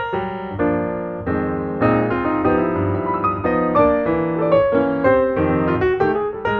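Background music: a piano melody with chords.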